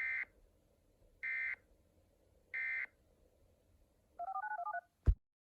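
Emergency Alert System end-of-message signal: three short bursts of warbling data tones a little over a second apart. Then a quick string of touch-tone (DTMF) beeps and a sharp click just after five seconds.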